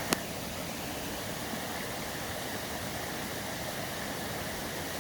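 Steady rush of falling water from a waterfall, with one sharp click just after the start.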